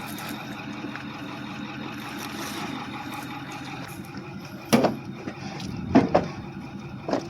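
A vehicle engine idling steadily, with three sharp knocks in the second half, the loudest about six seconds in.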